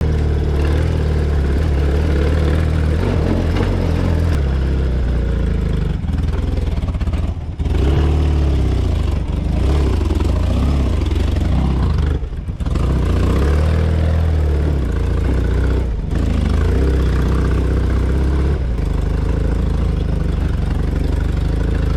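BMW GS motorcycle's air-cooled boxer-twin engine running under way, the revs rising and falling over and over. The sound drops away briefly twice, about seven and a half and twelve and a half seconds in.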